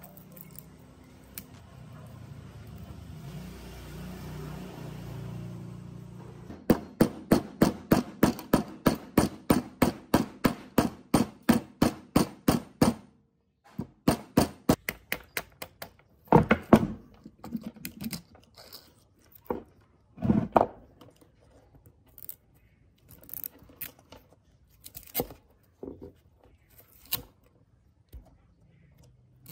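Workshop work on saw parts: a soft steady hum for the first few seconds, then a quick run of sharp taps, about three a second, like a hammer driving a part. After a short pause come scattered knocks, clicks and scrapes of parts being handled.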